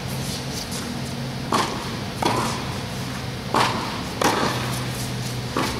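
Tennis rally: about five sharp knocks of racket strikes on the ball and ball bounces, echoing in a large indoor tennis hall. A steady low hum runs underneath.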